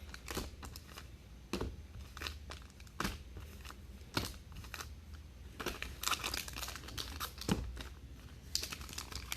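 Plastic wrapping on sealed trading-card boxes and packs crinkling and tearing as they are handled and unwrapped, with scattered light clicks and taps.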